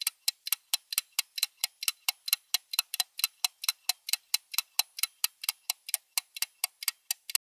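Clock-ticking sound effect: rapid, even ticks, about five a second, which cut off abruptly near the end.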